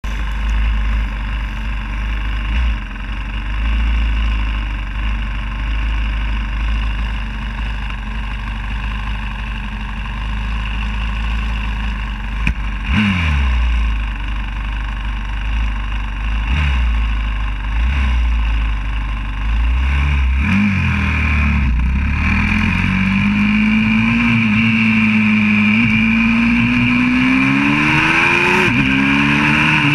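YCF 125cc four-stroke pit bike engine idling with a few short blips of the throttle, then pulling away about two-thirds in. Its note climbs steadily as it accelerates, with a brief dip and climb near the end at an upshift.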